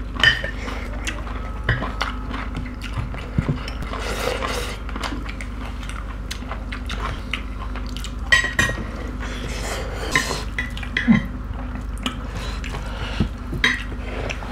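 Mukbang eating sounds: scattered clinks and taps of fingers and spoons against ceramic plates and a glass dish, with chewing, while pork curry and rice are eaten by hand.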